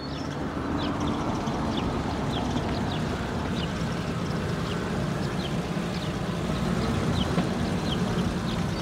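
Cartoon truck engine sound effect running steadily with a low hum, with short high falling chirps repeating over it.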